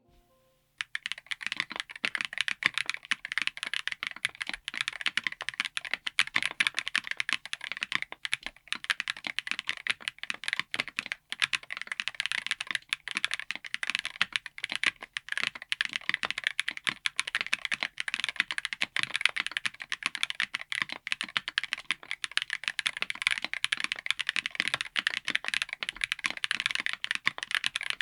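Continuous fast typing on a mechanical keyboard fitted with Wuque Studio Flux Deep Clacky Hall Effect switches: a dense run of crisp, clacky keystrokes that starts about a second in.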